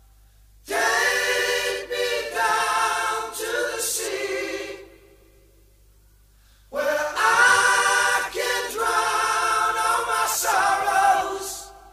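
Unaccompanied singing by a choir of voices, in two phrases about four seconds long with a pause of about two seconds between them.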